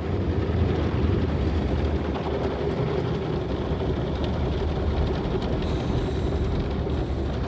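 Automatic car wash heard from inside the car: a steady low rumble of water and cloth brushes working over the windshield and roof, with a constant hum from the wash machinery.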